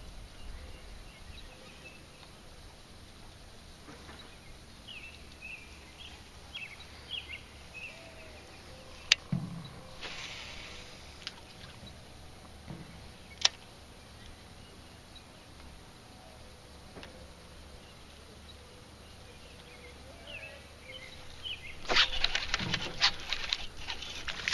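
Quiet lakeside background with faint chirping and two sharp clicks. About 22 seconds in, a loud burst of splashing begins as a hooked largemouth bass thrashes at the surface.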